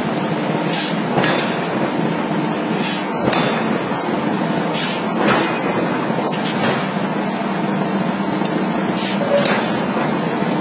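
Forging hammer striking hot metal, sharp heavy blows about every one to two seconds over a steady machine hum.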